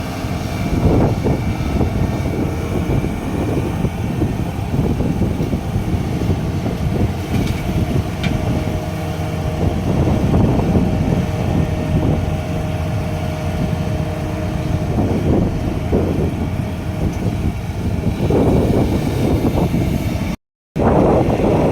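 Heavy diesel earthmoving machinery running, the engine note swelling and easing as the machines work, with a momentary break near the end.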